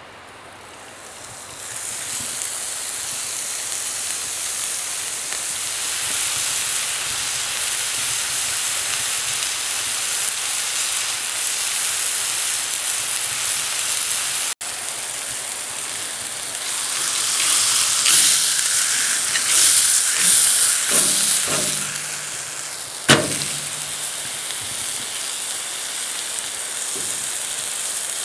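Food frying in a hot pan: a steady sizzle that swells in about two seconds in, with louder crackling spells later and one sharp knock near the end.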